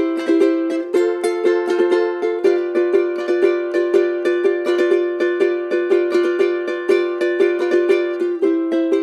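Timple, the small five-string Canarian guitar, strummed in a brisk, even isa rasgueo pattern in C major. It changes chord about a second in, again about two and a half seconds in, and near the end.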